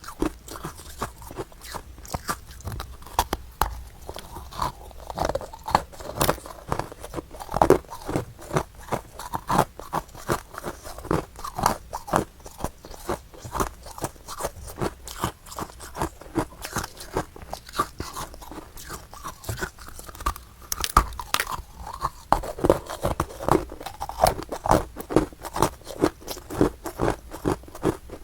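Close-up crunching and chewing of powdery freezer frost, a rapid run of crisp crunches several times a second.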